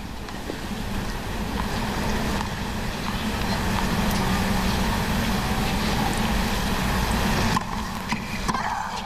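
Recording static: a steady hiss with a low hum under it, growing louder and then cutting off suddenly about seven and a half seconds in.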